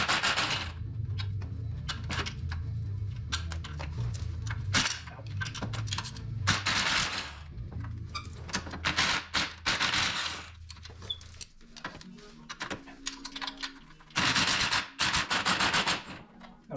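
Impact wrench rattling in a series of short bursts, working nuts and bolts loose on an ATV rear axle. A steady low hum runs beneath and stops about two thirds of the way through.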